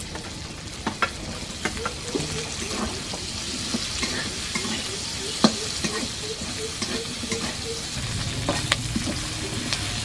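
Onion petals frying with a steady sizzle in hot oil in a metal kadai, stirred with a metal spatula that clicks and scrapes against the pan. The loudest knock comes about five and a half seconds in.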